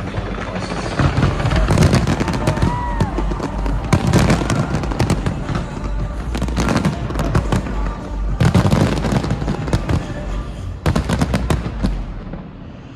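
Fireworks exploding in rapid, dense volleys of bangs and crackles, with music underneath. The bursts thin out and die away near the end.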